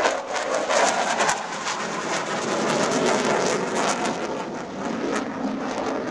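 Dassault Rafale fighter jet flying past in a display, a rushing jet-engine roar that eases off gradually as it draws away.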